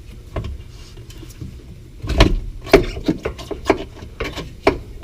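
A run of irregular metal clunks and knocks, one early and about seven more from about two seconds in, as the unbolted rear coilover and tools are handled, over a low steady hum.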